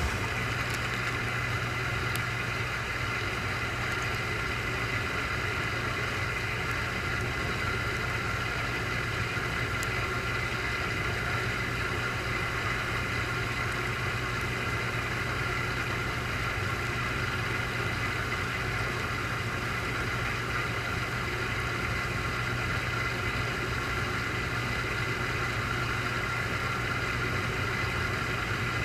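Dishwasher pump motor running with a steady low hum and a fainter whine above it.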